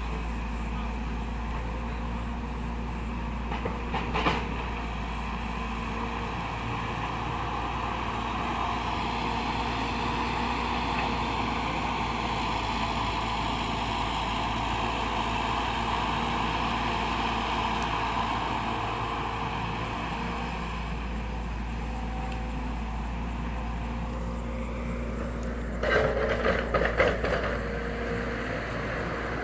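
Hydraulic excavator's diesel engine running steadily, swelling under load for several seconds in the middle. There is a short clatter about four seconds in and a burst of metallic clanking near the end.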